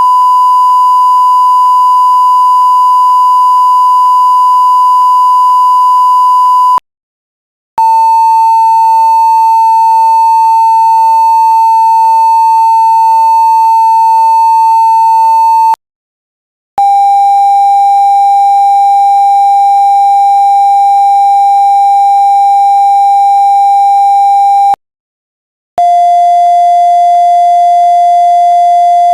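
Censor bleep sound effect: a loud, steady pure beep tone held for about eight seconds at a time, broken by about a second of silence. Each new beep is a step lower in pitch, four in all.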